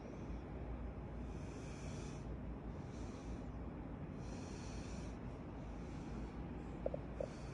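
A person breathing close to the microphone, about four breaths each lasting around a second, over a low rumble. Two short squeaks near the end.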